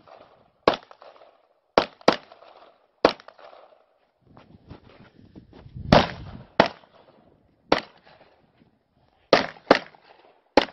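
Glock 17 pistol fired about ten times in uneven strings, several shots in quick pairs, each a sharp crack.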